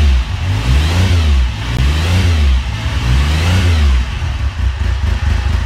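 Motorcycle engine revving up and back down three times, about a second and a half apart, then running unevenly near the end.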